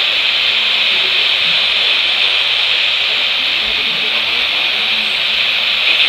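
Steady static hiss from a weather radio's FM tuner on 93.7 FM, a weak signal, with a faint voice audible under the hiss.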